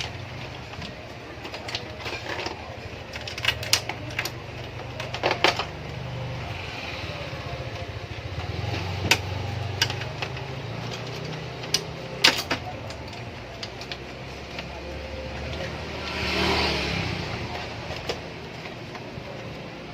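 Plastic clicks, taps and knocks of laser printer/scanner parts being handled and fitted back together, over a steady low hum. A short scraping rustle comes about three-quarters of the way through.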